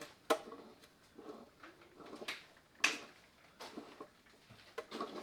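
Scattered sharp clicks and knocks of tools and parts being handled, with faint rustling in between; the loudest knock falls about three seconds in.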